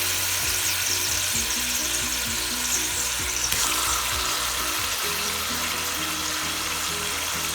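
Chicken pieces marinated in pineapple juice sizzling steadily in hot oil in a frying pan, together with sautéed garlic, onions and bell pepper. Soft background music plays underneath.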